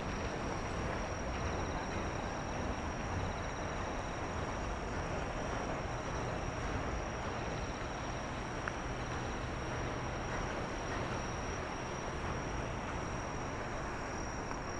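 Insects singing in a city park: a steady high-pitched trill, with a fainter pulsing chirp that comes and goes, over a constant low hum of distant city traffic.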